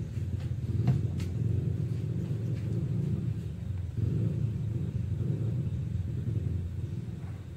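Gas stove burner flame running under a stainless-steel pot, a low steady rumble with a couple of faint clicks about a second in.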